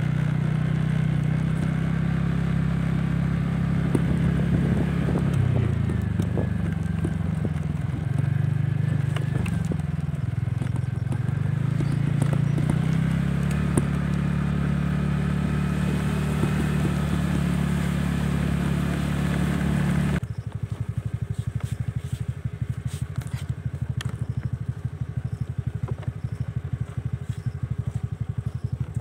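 Motorcycle engine running while under way, its pitch rising and falling with speed. About twenty seconds in, the sound changes abruptly to a lower, evenly pulsing engine note at low revs.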